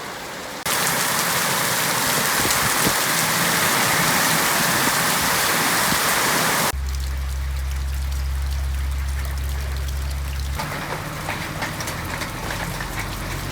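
Heavy tropical rain pouring down, then cutting suddenly to a quieter downpour with a steady low hum underneath for a few seconds, and then to lighter rain with separate drops audible.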